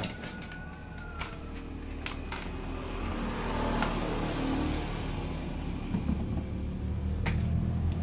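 A motor vehicle engine humming low and steady, growing louder toward the end, with a few faint clicks over it.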